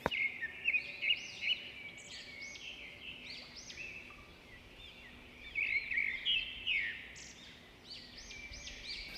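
Birds chirping: many short overlapping chirps that rise and fall, over a faint steady hum.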